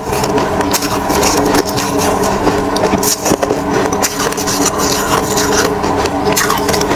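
Steady droning hum with scattered crisp crackles and crunches of soft shaved ice on and off the spoon.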